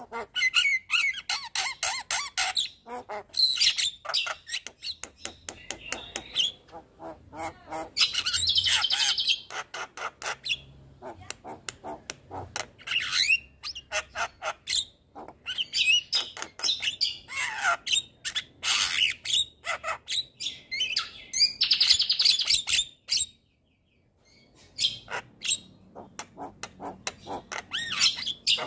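Javan myna (jalak kebo) in full song: a long, varied run of rapid clicks, harsh squawks and whistled notes. It breaks off for about a second a little over two-thirds through, then starts again.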